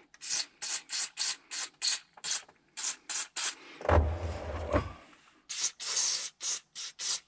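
Aerosol can of oxidation-removing contact cleaner sprayed into the fuel pump wiring harness connector in quick short hisses, about three a second, in two runs with a dull bump between them near the middle.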